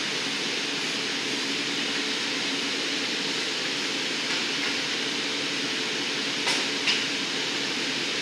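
Steady rushing noise of a glassblowing hot shop's gas-fired glory hole and ventilation, with two short knocks near the end as the blowpipe is worked at the bench.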